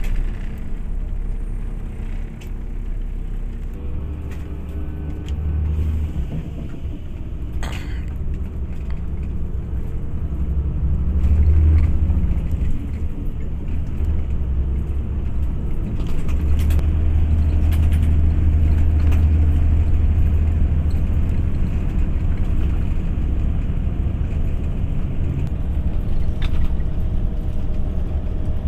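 Steady low rumble of a motor vehicle running, swelling and easing at times, with a sharp click about eight seconds in.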